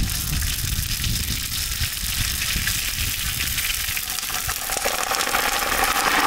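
Hot oil in a large kadai sizzling as fennel seeds and cumin are tipped in, then garlic cloves; the sizzle grows louder about four seconds in as the garlic goes in.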